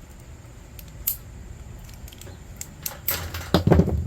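Scrap pieces of metal and plastic being handled and broken apart: scattered light clicks, then a burst of clattering and rustling near the end.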